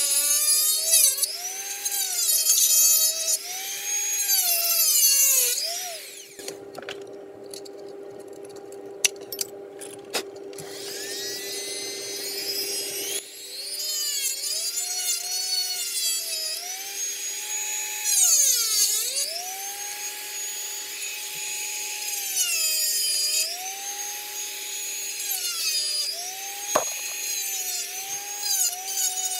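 Dremel rotary tool with a diamond cutting bit grinding into hard plastic. Its high whine repeatedly dips in pitch as the bit bites in and rises again as it frees. It eases off to a lighter, quieter grind for several seconds about a third of the way in, and there is a sharp click near the end.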